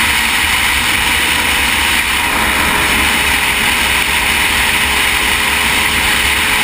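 Motorcycle riding at road speed: steady wind rush over the camera, with the bike's engine running at a steady throttle underneath.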